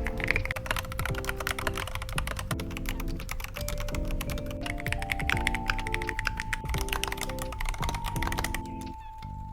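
Rapid typing on a mechanical keyboard, a dense stream of key clicks, over background music with sustained chords. The typing stops near the end, leaving the music.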